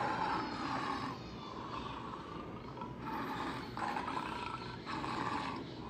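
Tiger growling: several rough growls, one after another.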